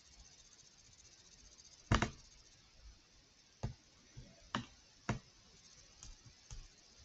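A handful of short, sharp clicks and knocks at uneven intervals over faint room tone, the loudest about two seconds in.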